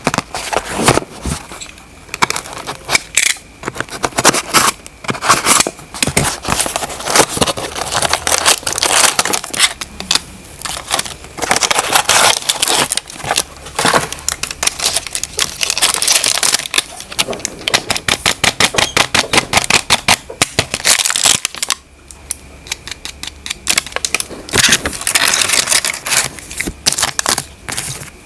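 Packaging being handled and unwrapped: plastic and cardboard crinkling, crackling and rustling in dense, irregular bursts, with a brief lull near the end.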